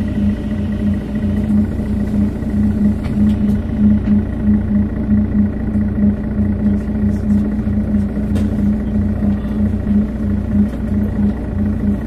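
Diesel engine of a Setra S415 NF low-floor bus idling steadily at an even pitch, with a low pulsing hum.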